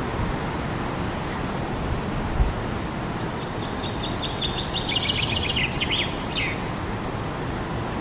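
Steady wind noise with a small songbird singing one fast run of short high notes for about three seconds in the middle, ending in a quick falling flourish. A brief low bump about two seconds in.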